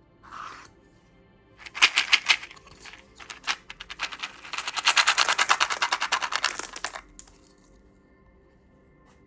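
Crisp plastic candy wrapper crinkling as a lollipop is unwrapped: rapid crackles in a short burst, then a longer, denser run that stops about seven seconds in.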